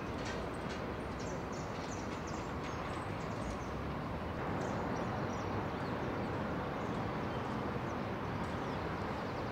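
Polo ponies' hooves on turf, heard as scattered clicks over a steady outdoor noise bed.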